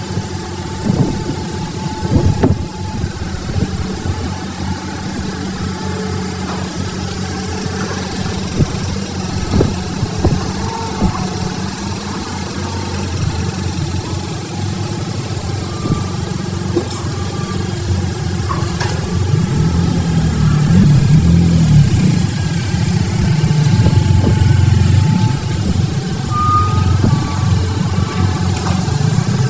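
Hydraulic crawler excavator's diesel engine running steadily and revving up under load as it digs and loads sand, louder from about two-thirds of the way in. There are a few short knocks near the start.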